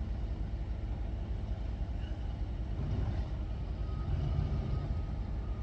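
A steady low rumble with a fainter hiss over it.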